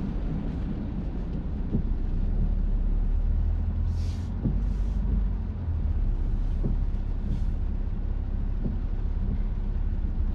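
In-cabin sound of a BMW 316d (F30) driving on wet roads: its four-cylinder diesel and tyres make a steady low drone, with two short hisses about four seconds in.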